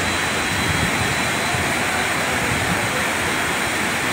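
Torrential floodwater rushing past together with heavy rain, a loud, steady, unbroken rushing noise.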